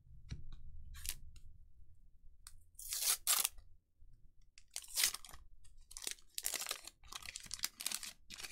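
Waxed-paper wrapper of a 1983 Fleer baseball card pack crinkling and tearing as it is opened by hand, in a series of crackling bursts, the loudest about three and five seconds in.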